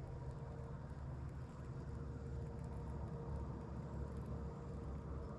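A boat's motor running steadily: a low, even rumble with a faint steady whine above it.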